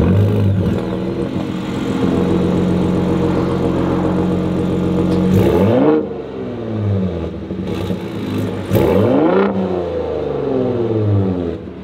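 Gen 3 Ford Raptor's 3.5-litre twin-turbo EcoBoost V6 heard at its dual exhaust tips, idling, then revved twice, about five and nine seconds in, each rev rising and falling back to idle.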